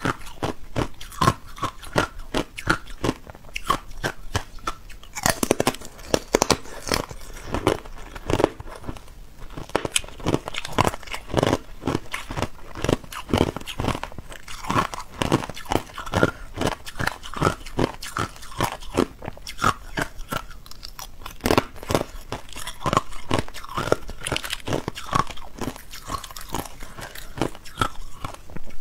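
Hard ice being bitten and chewed close to the microphone: a quick run of sharp crunches and cracks, several a second, with a few short pauses.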